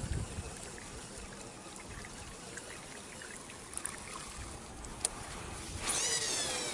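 Water trickling and lapping at a weedy lake edge with light wind. Near the end comes a brief high whine that falls in pitch.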